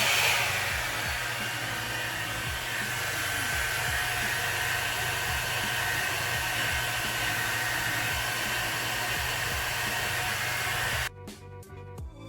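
One-step hot-air dryer-and-styler brush running on its low setting: a steady rushing of air with a faint steady whine, stopping abruptly near the end.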